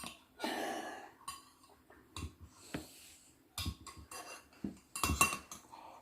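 A spoon clinking and scraping softly against a dessert bowl while eating pudding: a few scattered light knocks and clicks.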